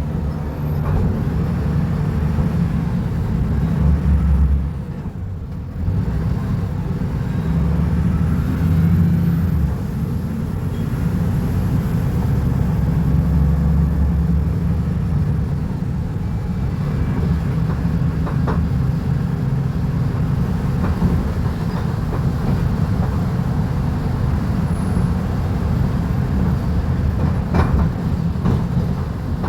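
Volvo B290RLE city bus diesel engine running under way, its low drone rising and easing as the Voith automatic gearbox works. The sound drops briefly about five seconds in, then picks up again.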